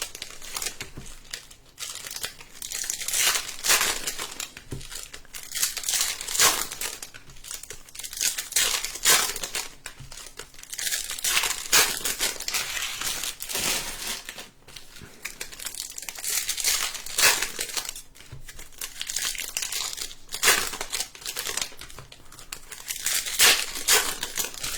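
Plastic and foil wrapping of Bowman Mega Box trading-card packs crinkling and tearing as it is opened by hand, in irregular crackling strokes.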